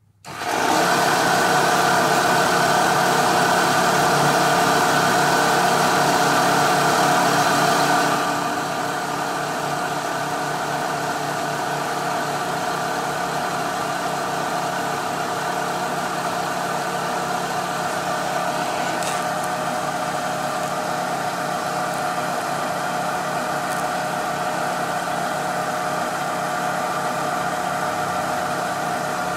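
Milling machine running steadily, a constant motor and spindle drone with several steady tones. It steps down to a quieter level about eight seconds in, and there are a couple of faint clicks later on.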